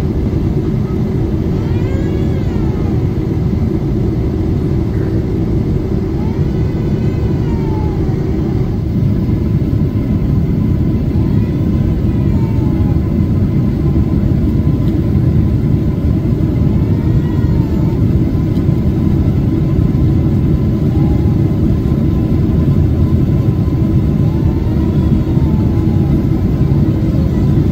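Cabin noise of a Boeing 777 climbing after take-off: a steady low rumble of its jet engines and the airflow, growing slightly louder, with faint rising-and-falling tones every few seconds.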